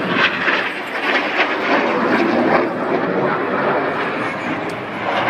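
Jet noise from BAE Hawk T1 display jets and their Rolls-Royce Turbomeca Adour turbofans flying past: a loud, steady rushing sound.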